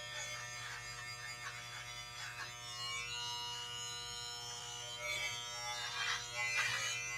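Corded electric hair clippers running with a steady buzz while cutting hair close, with a few scratchy scrapes near the end.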